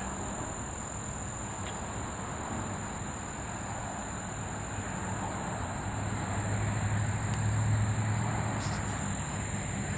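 Outdoor field ambience: a steady high insect buzz over a wash of wind noise, with a low hum that swells about six seconds in and fades near the end.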